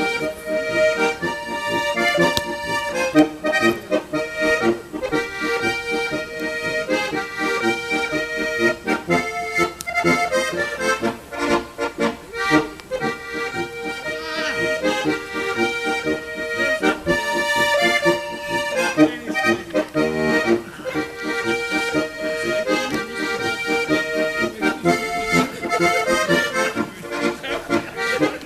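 Accordion playing a traditional folk tune, chords and melody changing steadily throughout.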